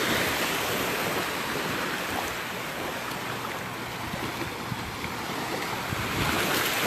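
Gulf of Mexico surf washing onto the beach, a steady rush that eases off and swells again near the end as another wave comes in, with wind buffeting the microphone.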